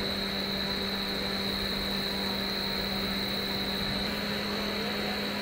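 Steady machine hum with a constant high-pitched tone above it, unchanging throughout.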